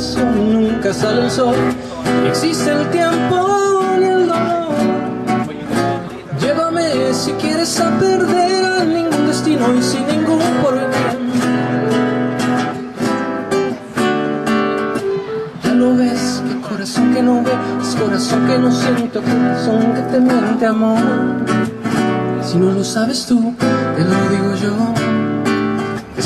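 Live acoustic guitar strummed steadily, with a man singing a melody over it.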